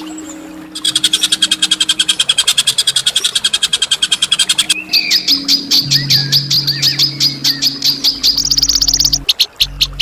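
Songbird calling in fast, harsh trills of sharp high notes, with a second rapid chirping series starting about five seconds in, over low, steady background music.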